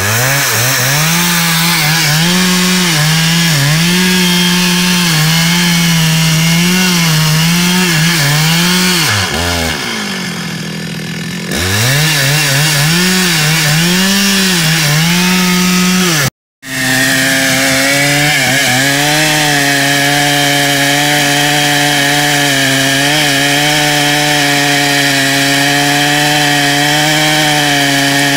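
Two-stroke chainsaw cutting into a teak trunk at high revs, its engine note sagging and recovering every second or so as the chain bites. About ten seconds in it drops back to a lower, quieter speed for a couple of seconds, then revs up again. After a split-second dropout past the halfway mark it runs at a steadier high speed.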